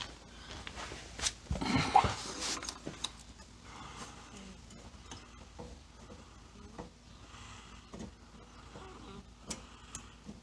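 Faint scraping and light metal clicks of an engine cylinder being worked down over the piston and its rings, with a short vocal sound about two seconds in.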